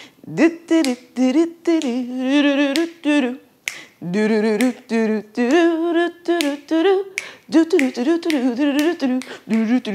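A woman singing a wordless waiting tune, with wavering held notes, while snapping her fingers in time, about two snaps a second.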